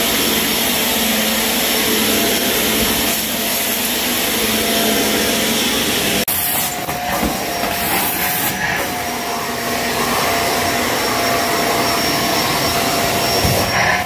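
Shark vacuum cleaner running over carpet with a steady motor whine. About six seconds in the sound breaks off for an instant and comes back with a different steady pitch.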